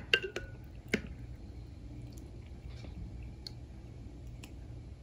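A small plastic Hot Wheels monster truck toy dipped and moved in a bowl of hot water: soft squishing and dripping, with a few sharp little clicks in the first second, the loudest just before a second in, then fainter ticks.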